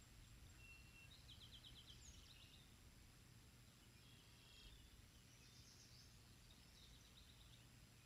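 Near silence outdoors: faint distant songbirds chirping and trilling in several short phrases a second or two apart, over a low steady rumble.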